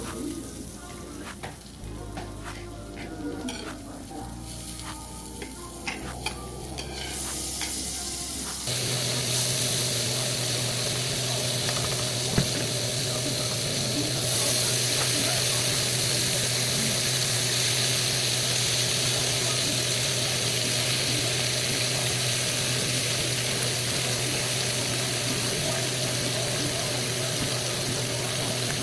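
A few light clicks and clinks of kitchen utensils, then, about nine seconds in, food starts sizzling and frying in a hot pan over a steady low hum. The sizzle gets louder and brighter about halfway through.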